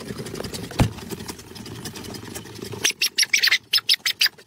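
Low engine rumble of a car, heard from inside the cabin, with a single thump a little under a second in. From about three seconds in an animal gives a rapid run of short, high squeaks, about five a second.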